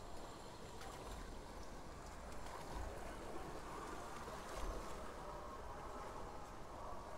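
Floodwater sloshing and swishing steadily as legs and wheels push through it.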